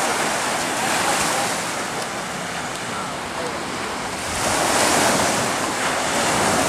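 Small waves breaking and washing through shallow surf, with wind on the microphone; the surf swells louder about four seconds in.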